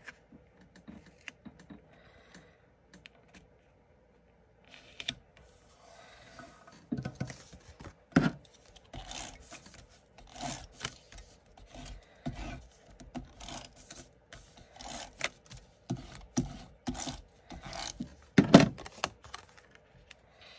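Cardstock layers being handled, positioned and pressed down by hand on a glass craft mat: irregular light taps and clicks with papery scrapes, and louder knocks about 8 seconds in and near the end.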